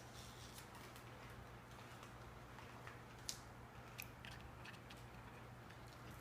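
Near silence: a low steady room hum with a few faint, sharp clicks scattered through it, the clearest about three seconds in.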